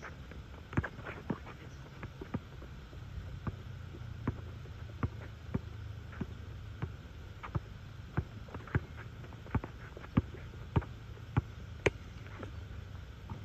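Basketball dribbled on an outdoor asphalt court: a steady run of sharp bounces, about one and a half a second, with the loudest bounce near the end.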